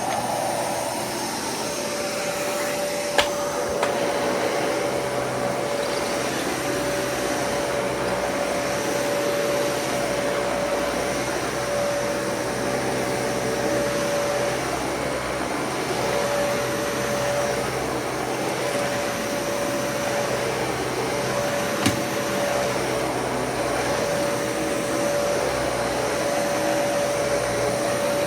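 Dyson Cinetic Big Ball vacuum cleaner running steadily with a constant whine, with two sharp clicks, one a few seconds in and another about two-thirds of the way through.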